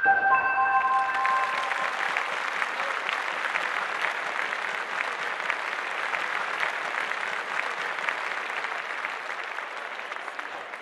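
Audience applauding, the clapping slowly thinning and dying away. The last notes of a short music sting ring out and fade during the first couple of seconds.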